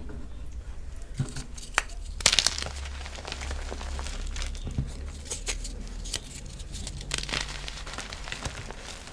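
Crisp, crackly crunching of a reformed gym chalk block as it is crushed and crumbles into powder, in irregular snaps with the loudest crunch about two and a half seconds in.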